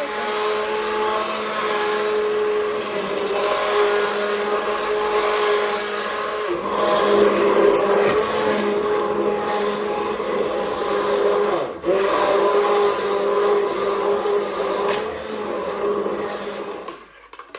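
Hand-held immersion (stick) blender running in a pot of cooked soup, puréeing it with a steady motor whine. The whine dips briefly about twelve seconds in and stops near the end.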